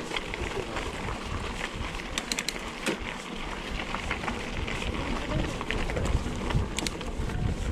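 Mountain bike riding down a rough, rocky trail: a steady rumble of tyres and wind on the microphone, with the bike rattling and clicking over bumps, a quick cluster of clicks a little over two seconds in and more near the end.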